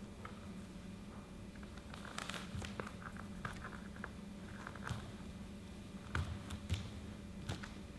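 Bare feet stepping, landing and scuffing on a stage dance floor: scattered soft thumps and brushes, busier from about two seconds in. A steady low hum runs underneath.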